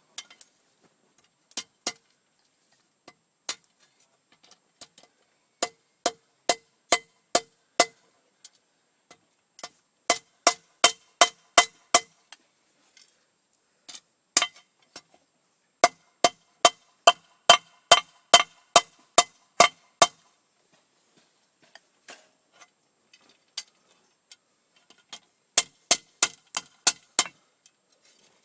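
Hand hammer striking steel on an anvil, forging the socket of a bodkin arrowhead: runs of ringing metallic blows at about three a second, separated by short pauses.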